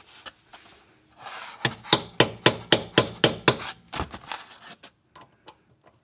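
A quick run of about eight sharp metal-on-metal taps, roughly four a second, with a faint ringing, then a few fainter knocks. These are hand tools striking the Vanagon's CV joint and flange as it is worked free.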